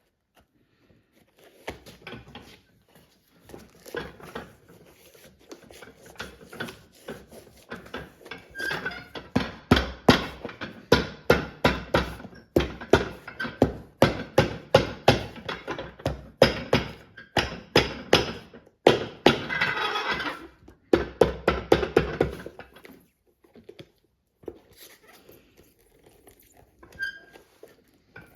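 Irregular knocks and thunks from hand-tool work on a leather boot at a cobbler's bench, coming faster and louder from about a third of the way in and dying away near the end.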